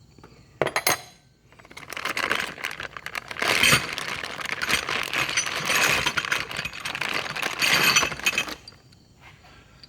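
Metal hand tools from a Kobalt mechanics tool set clinking and rattling as they are handled and unpacked: a short clatter about half a second in, then a dense, continuous rattle for about seven seconds.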